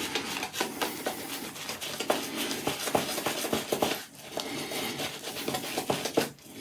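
Apshave Cashmere 28 mm shaving brush swirled over a lathered face, a wet crackling rub of bristles through shaving-soap lather. It pauses briefly about four seconds in and again near the end.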